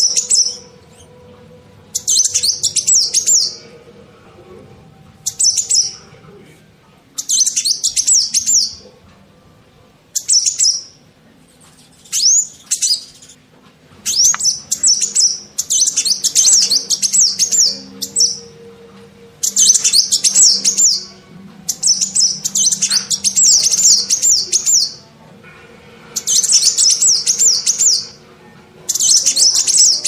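House sparrows chirping in rapid, high-pitched bursts, about a dozen of them, each one to three seconds long, with short pauses between.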